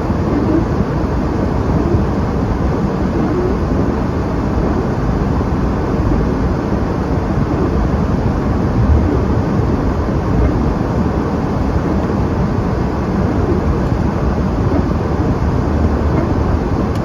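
Steady rumble of a car being driven, heard from inside the cabin: engine and tyre noise, even throughout.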